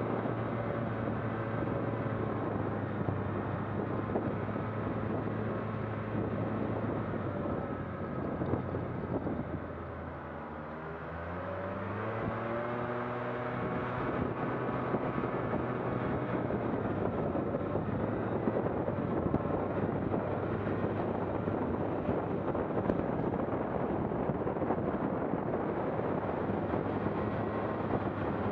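A vehicle's engine running steadily under way, with wind noise. About nine seconds in it slows and drops in pitch, then picks up again with a rising engine note.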